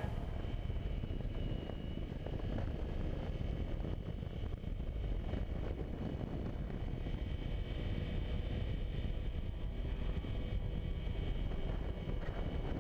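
Honda motorcycle engine running steadily while riding, with wind rushing over the microphone.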